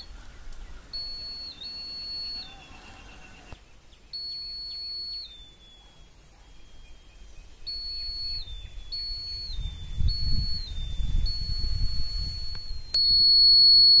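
A 9-volt piezo buzzer on a homemade laser tripwire alarm sounds a shrill steady tone in repeated on-off bursts, each one sagging slightly in pitch as it cuts out. The alarm is sounding because the laser beam is no longer falling on the LDR. Near the end the tone comes in louder and unbroken.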